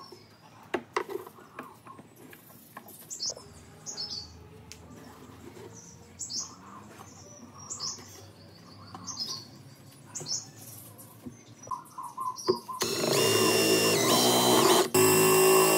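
Short, high bird chirps and light handling noises, then near the end a cordless drill starts up loud, boring into the wooden top of a speaker cabinet. It breaks off for an instant and runs on.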